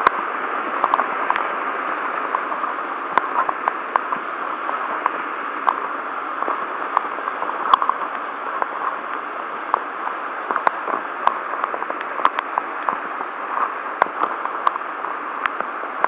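Steady rush of a waterfall and a stream running high after a typhoon. Scattered sharp clicks and knocks sound throughout.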